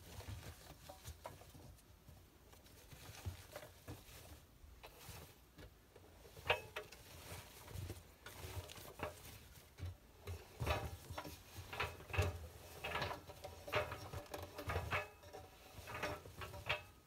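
Wet towels being handled and pulled about inside a front-loading washing machine's stainless steel drum: irregular rustles, small clicks and soft knocks, sparse at first and busier from about six seconds in.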